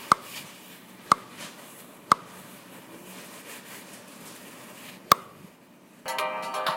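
Four short, sharp pops, each with a brief ping: three come about a second apart, then one more after a three-second gap. A bright, ringtone-like tune starts near the end.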